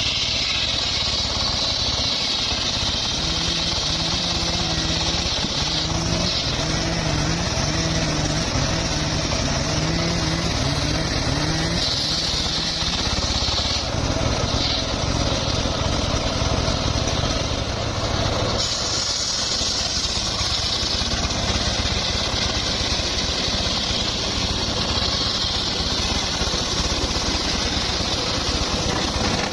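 Engine-driven wood saw running steadily under load while cutting mahogany. The cutting noise shifts in strength a few times.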